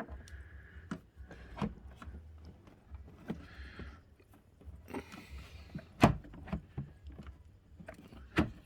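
Hard plastic knocks and clicks from a new dehumidifier's water tank being worked out of the machine. The tank is stiff, and there is a louder knock about six seconds in and another near the end.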